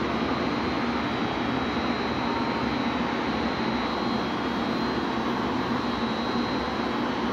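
An electric motor running steadily: a constant rushing hum with a faint, steady high whine.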